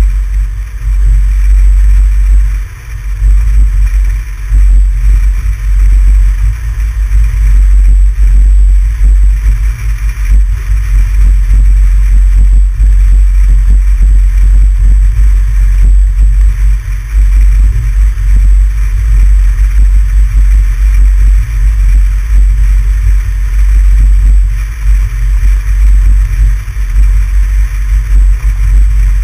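Wind and road noise of a moving vehicle, picked up by a GoPro mounted on the car's exterior: a loud, buffeting low rumble with a hiss above it.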